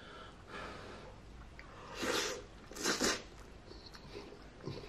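Mouth sounds of a man eating hot spaghetti: two short, breathy bursts about a second apart as the noodles reach his lips.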